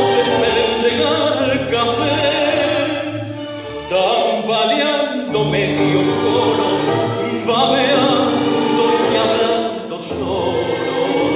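Music with a singing voice over instruments, playing steadily throughout.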